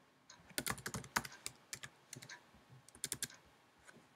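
Computer keyboard being typed on: a quick, irregular run of key clicks as a single word is entered, which stops a little after three seconds in.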